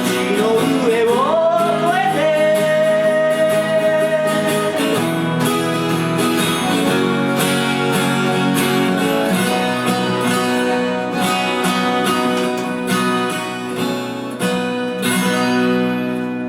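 Closing bars of a slow Japanese ballad on strummed acoustic guitar, with a note that glides up near the start and is held for a few seconds. The music gets quieter near the end.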